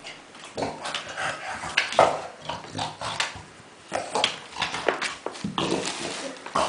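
French bulldog making pig-like noises in short, irregular bursts while playing with tennis balls.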